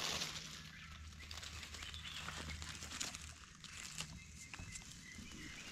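Gloved hands raking through dry leaf litter and twigs: faint crackling and rustling with many small snaps, as the leaves are cleared from around a mushroom in the soil.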